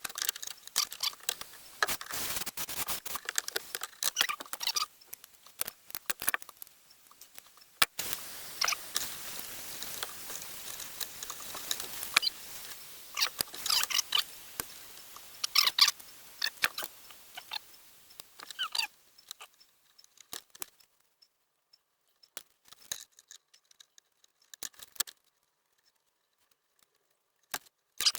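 Hand work on small parts: irregular light clicks, taps and scrapes, with a steady hiss for about ten seconds in the middle, then only a few scattered clicks.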